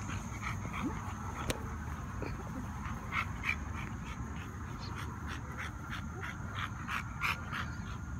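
Dog panting in short, quick breaths that come in uneven runs, strongest about three seconds in and again around seven seconds.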